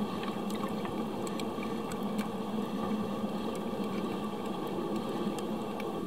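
Underwater ambience on a coral reef picked up by a camera sealed in an underwater housing: a steady noise with a constant low hum and a few faint scattered clicks.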